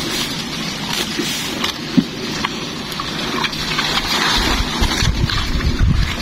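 A paddle working a small boat through dense dry marsh vegetation: dead stalks and water hyacinth crackle and scrape against the hull and paddle, with a single knock about two seconds in. From about four seconds in, an uneven low rumble joins the crackling.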